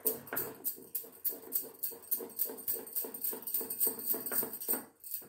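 A spoon beating thick dhokla batter in a glass bowl in quick, regular strokes, about three to four a second, clicking against the glass. This is the Eno being mixed through the semolina and gram-flour batter so that it turns spongy.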